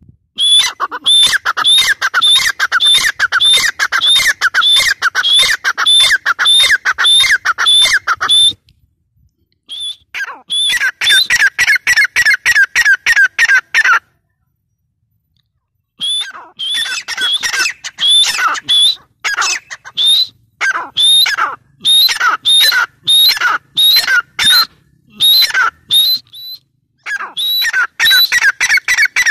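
Grey francolin calling loudly, a fast run of repeated ringing notes at about two a second, given in three long runs broken by two short pauses.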